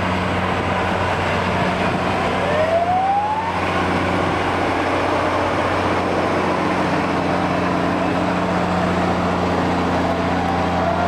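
Heavy-haulage prime movers driving past close by, their diesel engines giving a steady deep drone. A short rising tone sounds about two and a half seconds in, and a wavering tone near the end.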